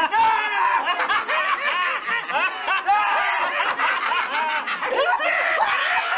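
Several men laughing hard together, their laughs overlapping without a break.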